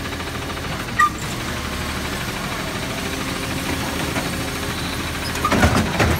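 Peterbilt 520 garbage truck's engine idling steadily while its Labrie Automizer hydraulic side arm lowers an emptied cart. A single sharp metallic clank about a second in, and a cluster of knocks near the end as the cart is set down on the pavement.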